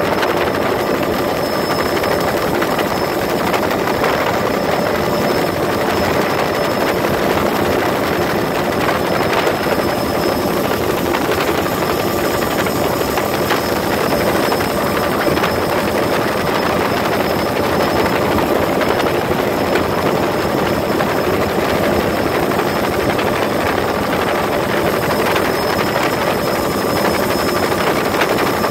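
Bell OH-58 helicopter in steady flight, heard from inside the cabin: a constant rushing engine-and-rotor noise with several fixed whining tones from its turboshaft engine, unchanging throughout.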